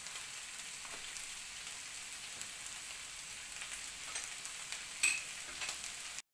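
Meatballs and chopped peppers sizzling steadily in a nonstick frying pan on a gas hob, with a fine crackle. A single sharp clink about five seconds in, and the sizzle cuts off suddenly near the end.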